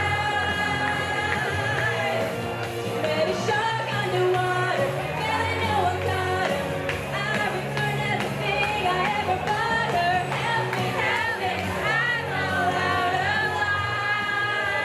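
A girl singing karaoke into a microphone over an amplified backing track, with a continuous sung melody and held notes.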